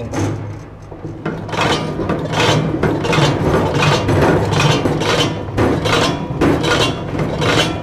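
Hand-cranked stainless-steel manual tablet press running, its gears and punch giving a sharp mechanical clack about once every second as each tablet is pressed and ejected. The clacks start about a second and a half in.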